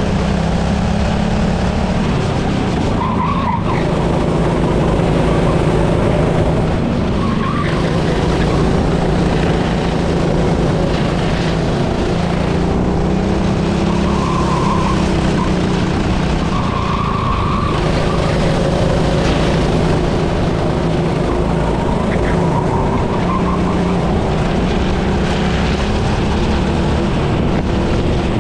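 Racing engine running hard on a circuit for the whole stretch, its pitch rising and falling again and again as it accelerates and backs off, with tyre noise underneath.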